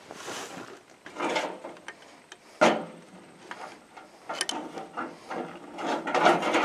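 Irregular metal clinks, scrapes and knocks from a wrench and the parts of a tractor hydraulic lift unit being worked on: a wrench on the nut at the bottom of the draft control spring rod, and the cast unit being shifted. There is one sharp clank a little under three seconds in, and a run of louder clatters near the end.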